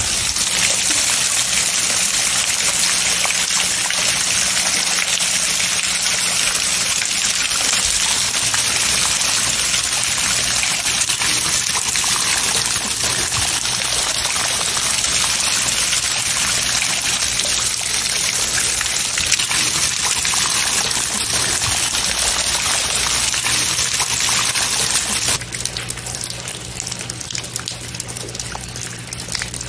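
Heavy rain pouring down and splashing on wet paving, a dense steady hiss with a low hum underneath. About 25 seconds in it cuts abruptly to the quieter trickle of a small garden stream running over pebbles.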